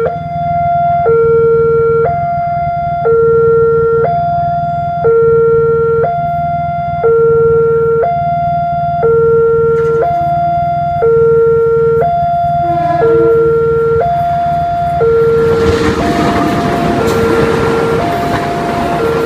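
Railway level-crossing warning alarm sounding its two-tone electronic signal, a high note and a low note alternating about once a second. From about fifteen seconds in, the noise of a passenger train running through the crossing rises under it.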